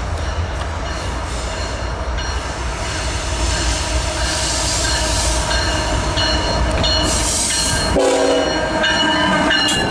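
Freight train rolling past, with a steady low rumble and thin high squeals from the steel wheels on the rail. The rumble drops away about eight seconds in, and a short burst of several tones sounding together comes at the same time.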